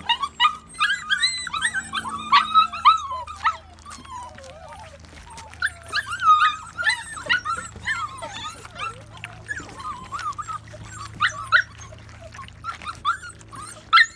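Young Goldendoodle puppies squeaking and whimpering as they crowd a pan of mush, with small wet lapping and chewing clicks throughout. The squeals are thickest in the first few seconds and again about six seconds in.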